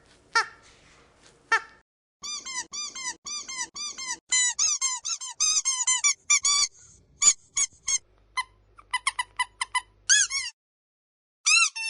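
Squeaky dog toy squeezed again and again, each squeak a short rise-and-fall in pitch. The squeaks come in quick runs of several a second, with a short pause about ten and a half seconds in before a couple more.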